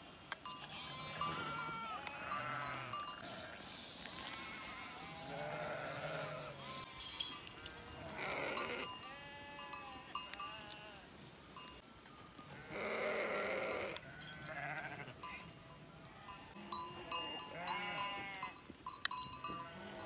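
A flock of sheep and goats bleating, many separate calls at irregular intervals, some overlapping.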